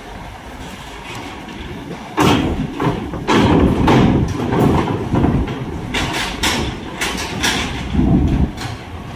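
A heavy low-bed truck carrying a Caterpillar excavator drives over a steel ferry loading ramp with its engine running low. From about two seconds in, loud metallic clanks and thumps repeat as the wheels and the load go over the steel ramp plates.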